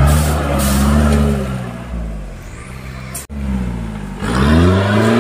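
Modified off-road Jeep's engine revving hard as it climbs a muddy slope, the pitch swelling up and falling back in repeated surges. The sound cuts out for an instant a little over three seconds in.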